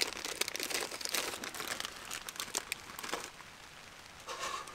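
Paper biscuit packet crinkling and rustling as a biscuit is pulled out of it, dying away after about three seconds.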